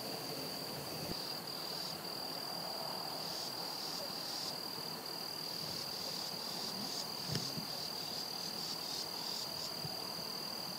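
An insect, such as a cricket, trilling in one steady, unbroken high-pitched note, with shorter, broken buzzes from other insects above it in the second half.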